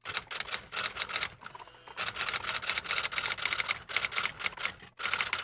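Typewriter keystroke sound effect: rapid clacking keys, about seven strokes a second, with a short pause about one and a half seconds in and another near the end, accompanying text being typed out letter by letter.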